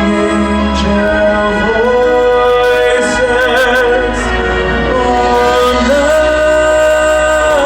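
Sung music: a voice or voices holding long notes with vibrato, moving slowly from note to note over a sustained low accompaniment.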